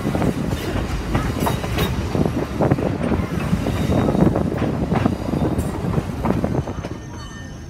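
Passenger railroad coach rolling along the track, heard from its open side: a steady rumble of wheels on rail with frequent clacks and rattles.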